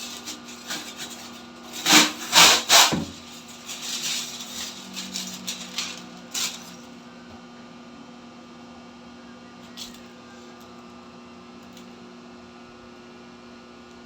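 Hand-work rubbing and scraping on tile material: a run of scrapes and knocks, the loudest three about two to three seconds in. After that it goes quiet except for a steady electrical hum and one faint click.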